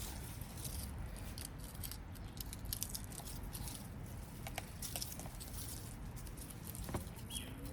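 Dry marigold seed heads crackling as they are pulled apart by hand. Many small irregular ticks and crinkles sound over a faint steady background.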